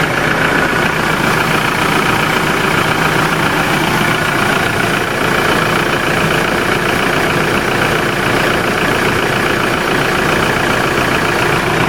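Hyundai Starex van's engine idling steadily after its battery has been replaced, running without trouble.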